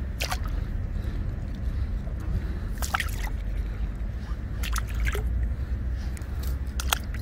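Crucian carp being released by hand into shallow river water: several short splashes and drips as it goes in and swims off, over a steady low rumble of wind on the microphone.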